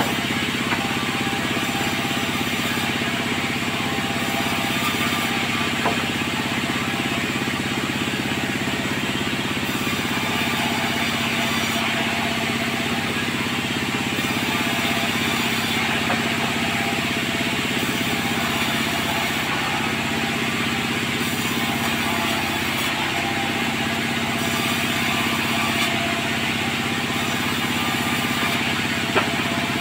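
Sawmill machinery running steadily: an engine-like hum with a hiss above it, broken by a few sharp knocks.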